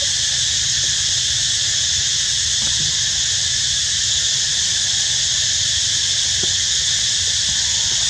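Steady, unbroken high-pitched drone of a forest insect chorus, with a low rumble underneath.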